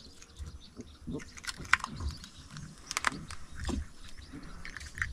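Faint scattered clicks and taps as a small caught red piranha is handled and unhooked by hand in the boat, over a low rumble.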